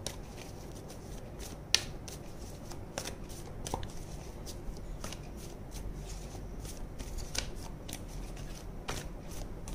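A deck of tarot cards shuffled by hand: soft, irregular clicks and flicks of cards slipping against each other, with one louder click a little under two seconds in.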